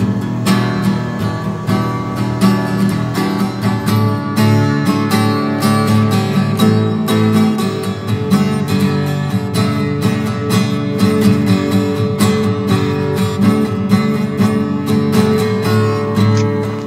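Background music of strummed acoustic guitar playing without a break.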